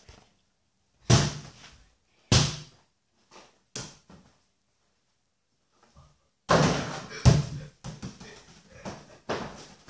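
A small ball bouncing on a hard floor around a toy basketball hoop. There are a few single thuds in the first four seconds, then a busy run of knocks and scuffling from about six and a half seconds in, with the loudest hit a little after seven seconds.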